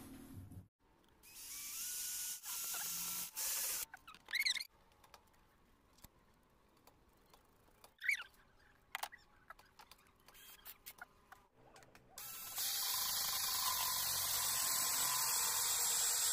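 A few short, rising squeaky chirps. Then, about twelve seconds in, a cordless drill starts and runs steadily as a small round cutter bores a hole through a pipe. This loud, even whirring noise is the loudest sound.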